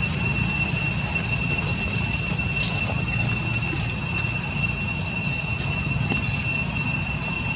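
A steady, unbroken high-pitched insect drone over a low, constant rumble.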